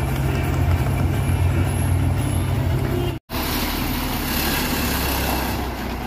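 Hino 500 concrete mixer truck's diesel engine running steadily with a deep low rumble. The sound cuts out abruptly for an instant about three seconds in, then resumes with more hiss over it.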